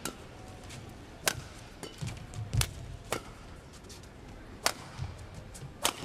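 Badminton rally: racket strings striking the shuttlecock in several sharp cracks, a second or two apart, with a low thud of footwork on the court near the middle.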